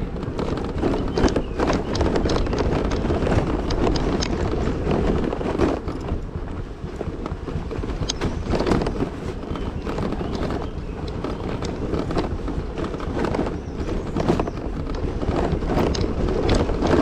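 Wind buffeting the microphone and an uneven clatter of knocks and rattles from a scooter riding over a rough, unpaved downhill road.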